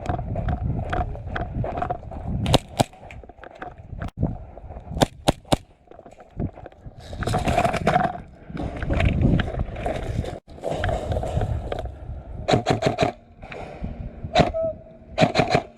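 Airsoft guns firing sharp snapping shots, singly and in quick runs of two to four, over loud scraping and rustling handling noise.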